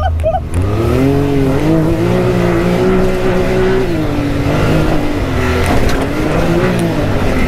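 Can-Am Maverick X3's turbocharged three-cylinder engine pulling the side-by-side across dirt, heard from the driver's seat. The engine revs up, holds, eases off briefly and revs up again as the throttle changes.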